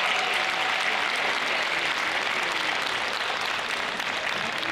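Audience applauding, the applause slowly dying away.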